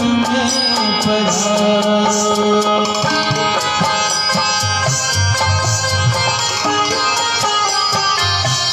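Harmonium playing a folk devotional melody in held, reedy notes over a steady rhythm of hand strokes on a dholak barrel drum.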